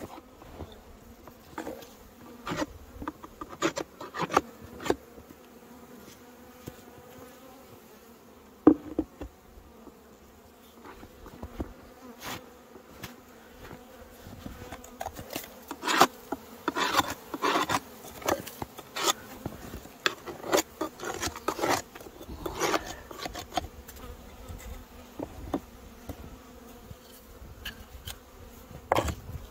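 Honey bees buzzing at a hive, a colony still alive after the snowstorm, with repeated sharp knocks and scrapes over the hum that come thickest from about halfway through.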